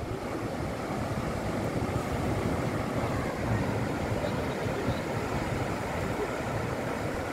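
Steady low roar of ocean surf breaking on a sandy beach, mixed with wind.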